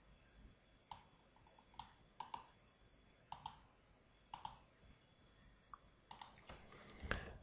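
Faint clicks of a computer mouse and keyboard keys: single clicks every second or so, then a quicker run of clicks near the end.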